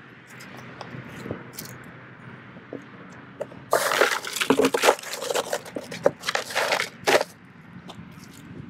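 Crushed ice and meltwater being worked in a fishing cooler as a sheepshead is put in on ice: a few seconds of crunching, sloshing and rustling, starting about four seconds in, with a few small knocks before it.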